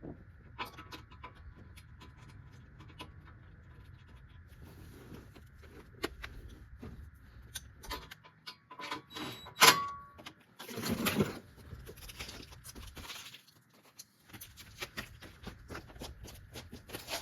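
Metal clinks, rattles and knocks from hand work fitting a 1/4-inch steel skid plate under a pickup truck, with one loud ringing metal clank a little past halfway and a scraping rush of about a second just after.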